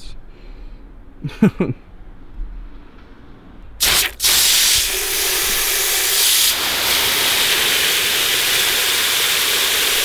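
A strong jet of water spraying, cutting in about four seconds in with a short break, then running steadily; its tone shifts slightly partway through.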